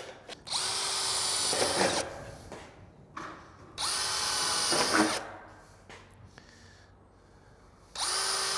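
Cordless drill boring screw holes through a sheet-metal spring cleat. It runs in three short spells of about a second and a half each, with the last one starting near the end.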